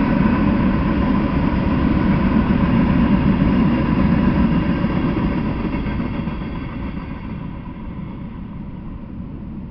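Freight train's open-top hopper cars rolling past on the rails, a steady rumble with a faint ringing tone. It fades away from about six seconds in as the last car goes by.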